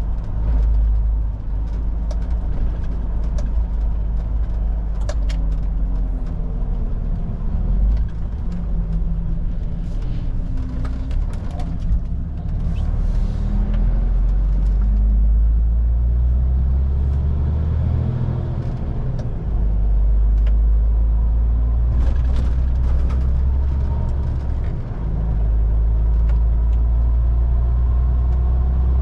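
Heavy truck's diesel engine running on the road with road noise, its pitch rising and falling as the speed changes. A few sharp clicks and rattles come through it.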